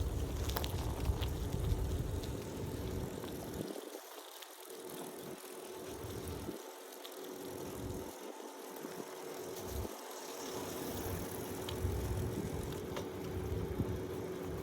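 Riding an old mountain bike: tyre and drivetrain noise with scattered light clicks and rattles, under a low rumble of wind on the microphone that drops away for moments several times around the middle.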